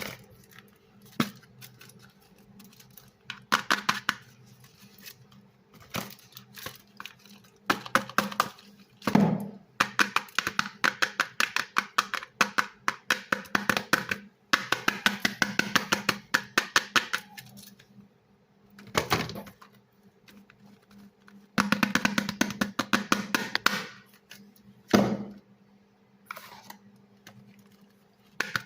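Soap crunching and crackling in bursts of rapid little cracks, some lasting several seconds, with short pauses between them.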